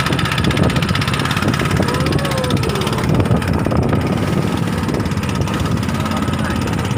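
Small boat engine running steadily.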